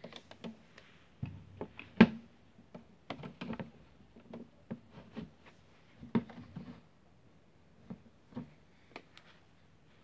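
Miele W1 toy washing machine running, a faint steady low hum from its small motor under irregular sharp clicks and knocks, the loudest about two seconds in.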